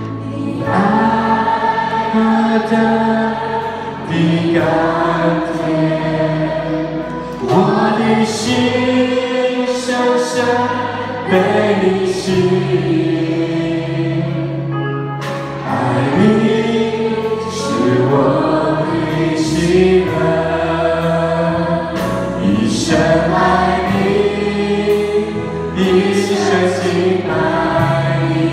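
Live worship band performing a Mandarin worship song: a male lead and several female backing vocalists sing together in phrases with long held notes, over keyboard, electric guitar and drums.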